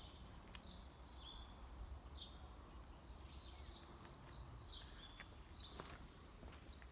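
Faint chirping of small birds: short high calls every half second to a second or so, over a low steady background rumble.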